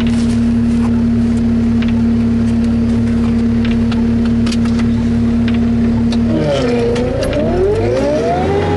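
New Holland skid steer running at a steady droning pitch; about six seconds in the pitch dips, then climbs and holds at a higher pitch near the end.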